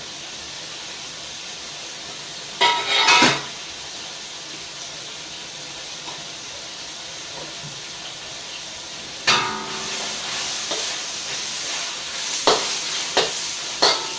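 Chopped ginger, garlic, onion and diced chicken sizzling in a stainless steel wok over a gas flame, with a steady frying hiss. A metal utensil clatters against the wok about three seconds in. From about nine seconds in the sizzling grows louder, with several sharp metal knocks near the end as stirring with a ladle begins.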